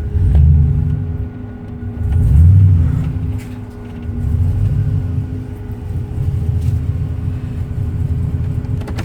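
Cammed 6.0-litre LS V8 blipped twice, then settling to a choppy idle. The owner takes the sound for rod knock, with cylinder 4 at less than half the compression of the other seven.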